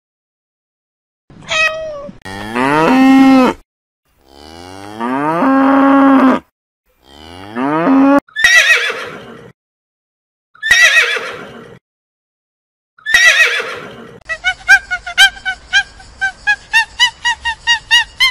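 A cat's short meow, then three long cattle moos that rise a little in pitch, then three horse whinnies, each falling in pitch. Near the end comes a fast run of short, evenly pitched animal calls, about four a second.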